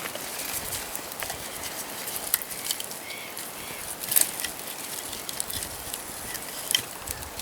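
Freshly lit campfire crackling, with irregular sharp pops and snaps.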